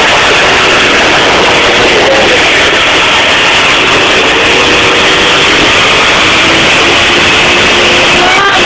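Sport motorcycle engine held at high revs during a burnout, its rear tyre spinning against the ground. Loud and steady throughout, with no let-up.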